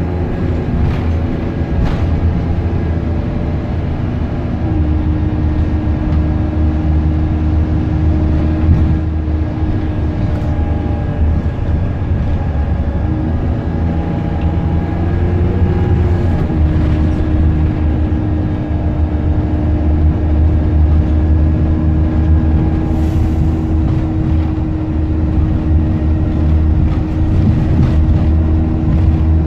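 Optare Versa single-deck bus running along the road, heard from inside the passenger saloon: a steady low engine rumble with a humming drivetrain note that changes pitch a few times as the bus speeds up and slows.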